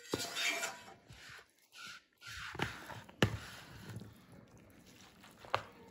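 A utensil scraping sautéed chicken and vegetables out of a nonstick skillet into a bowl of spaghetti, then tossing the food together in the bowl, with sharp knocks of utensil or pan against the dishes about two and a half, three and five and a half seconds in, the one just past three seconds the loudest.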